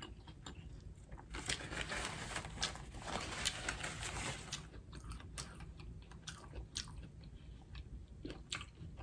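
Close-up mouth sounds of a person eating sauced seafood: sharp lip-smacking clicks throughout, with a longer stretch of wet chewing in the middle.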